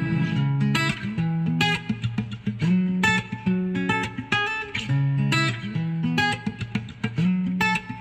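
Guitar music from an audio test track, single plucked notes in quick succession over lower sustained notes, played through Wings Touch true wireless earbuds and picked up by a microphone held near them.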